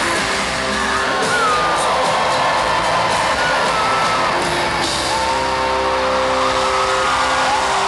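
Live band music in an arena, with held chords, while the crowd cheers and whoops over it.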